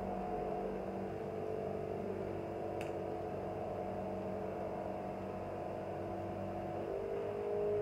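Lawnmower's small engine running steadily, its pitch stepping up slightly near the end.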